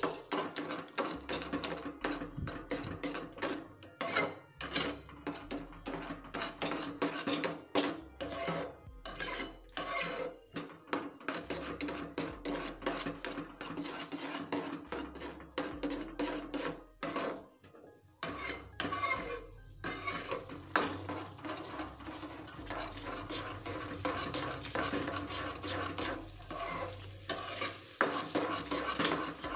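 Steel spatula stirring and scraping a thick, cooking semolina mixture (rava pak) around a steel kadai, with frequent clinks of metal on the pan. From about two-thirds of the way through, the separate strokes run together into steadier scraping.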